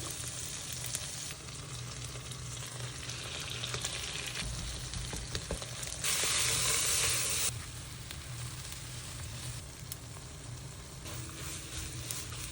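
Food sizzling in a hot pan, with a louder surge of sizzling about six seconds in that lasts about a second and a half.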